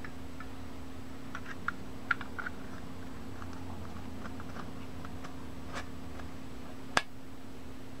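Metal Zippo lighter insert being handled and slid back into its case: a scatter of small metallic clicks and taps, then one sharp click about seven seconds in as it seats.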